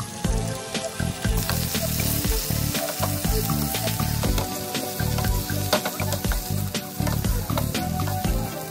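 Chunks of raw chicken breast sizzling in hot oil in a non-stick frying pan, with the clicks and scrapes of a wooden spatula stirring them. Background music plays underneath with a steady beat.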